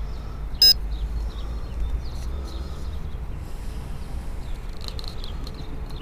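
Outdoor background with a steady low rumble and faint bird chirps. One short, sharp electronic beep sounds a little over half a second in.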